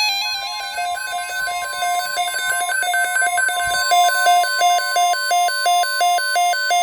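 NOAA Weather Radio alert tone: a steady single tone just above 1 kHz, played over a looping electronic tune of alternating high and low notes.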